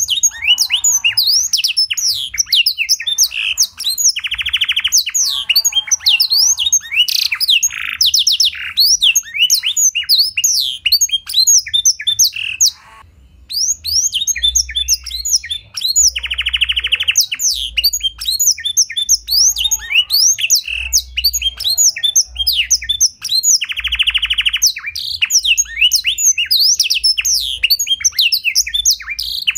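Domestic canary singing a long, fast song of sharp chirps and whistled notes broken by several buzzy rattling trills, the song tutored with black-throated canary (blackthroat) phrases. The song stops briefly about 13 seconds in, then resumes.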